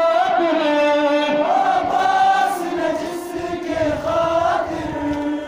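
Male voices chanting a Muharram mourning lament (nauha) in long, wavering held notes.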